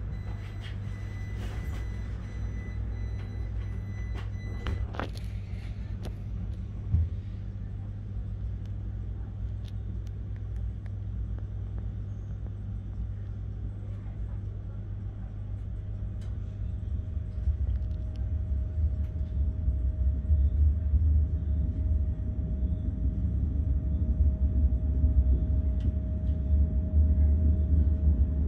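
Electric passenger train heard from inside the carriage: a steady low hum while it stands at the platform, with a high steady tone for the first five seconds and a single knock a little later. About sixteen seconds in a steady motor whine sets in and the low rumble grows louder as the train pulls away.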